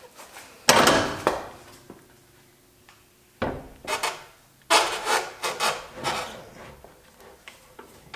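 A spare wheel with an all-terrain tyre being lifted onto a rear tire carrier and worked onto its wheel studs: rubber and wheel knocking and scraping against the metal carrier. A loud knock comes about a second in, then a cluster of scrapes and bumps as the tyre is shifted into place.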